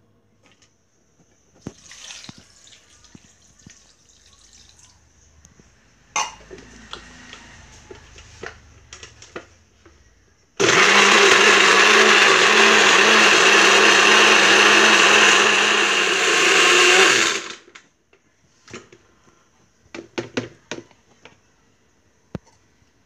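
Countertop electric blender switching on about ten seconds in and running steadily for about seven seconds as it purees cooked food and broth, then winding down. Before and after it, knocks and clicks of the jar and lid being handled.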